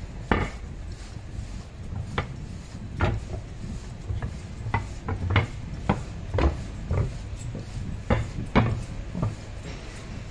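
MI79 electric multiple unit running slowly, with a steady low rumble and about a dozen irregular sharp clunks and knocks.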